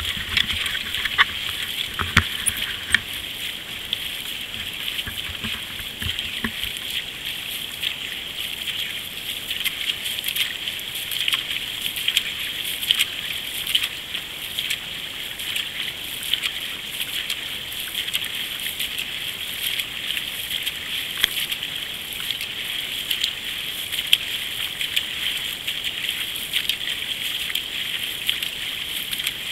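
Paddles of a nine-seat canoe digging in and splashing at race pace, with water rushing along the hull as a steady hiss. There are a few sharp knocks in the first few seconds.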